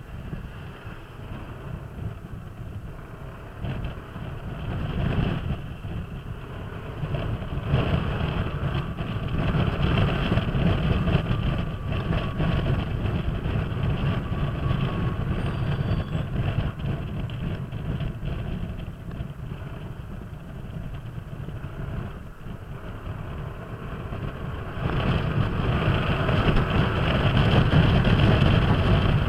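Kymco Downtown 300i scooter on the move in traffic: its single-cylinder engine running under a rush of wind on the microphone. The sound grows louder a few seconds in, eases off for a while past the middle, and picks up again near the end.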